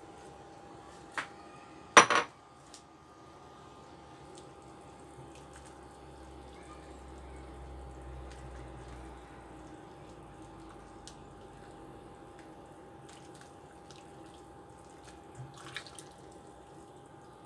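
A glass pot lid clanks sharply once, about two seconds in. Later a spatula stirs vegetables in water in the pot with small knocks and sloshing near the end, over a faint steady hum.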